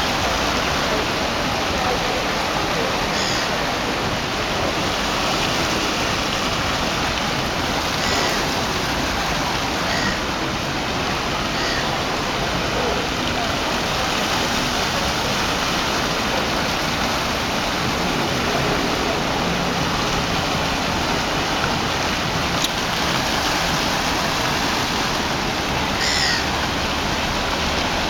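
Fountain with many small upright jets splashing steadily into a pool, a constant rushing patter of falling water. A few faint short chirps come through now and then.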